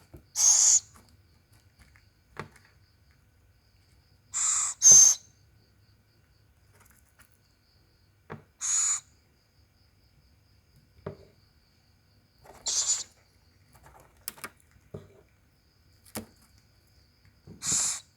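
Small owls giving short, hissing screeches about six times, some in quick pairs, typical of young owls begging for food at feeding time.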